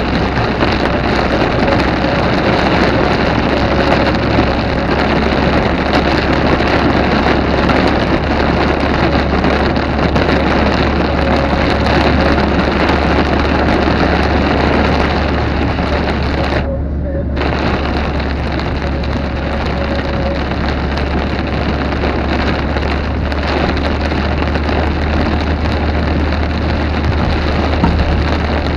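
Heavy rain pouring down steadily in a storm, a loud, even hiss with no distinct thunderclaps. The sound cuts out briefly about two-thirds of the way through.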